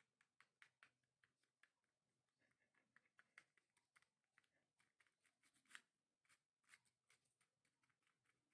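Faint, irregular light clicks and ticks, several a second, in a quiet small room, with a slightly louder click about two-thirds of the way through.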